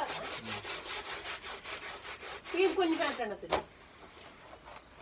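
Fast rhythmic scrubbing by hand, about six strokes a second, stopping a little past three seconds in, with a sharp click just after.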